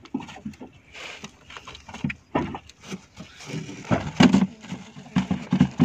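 Fish and hand line being handled on a boat deck: irregular knocks, taps and clatter, with a few short low grunts between them.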